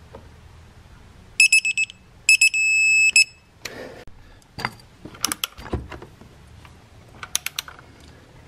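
Digital torque wrench beeping as a timing-belt pulley bolt is tightened: a run of quick high beeps, then a long steady tone at about two seconds in as the set torque is reached, then a few more beeps. Afterwards there are scattered metallic clicks and knocks of tools working on the engine.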